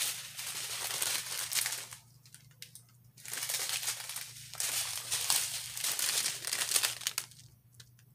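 Small clear plastic zip bags of diamond-painting drills crinkling and rustling as they are handled and sorted, in three stretches with short pauses about two seconds in and near the end.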